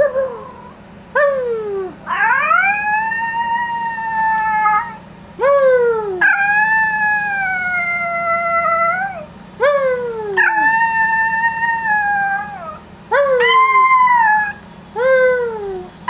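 Yorkshire terrier howling: long, high, drawn-out howls, each begun with a short yelp that drops sharply in pitch, repeated about four times with brief pauses between.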